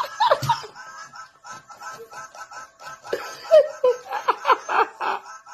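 A person laughing in quick repeated sounds, over light background music.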